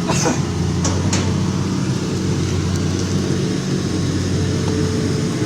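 Excavator's diesel engine running steadily with a low drone, with a few short clicks in the first second or so.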